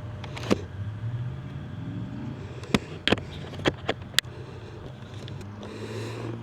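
Motorcycle engine running at a steady low idle, with half a dozen sharp clicks and knocks over it and a brief noisy swell near the end.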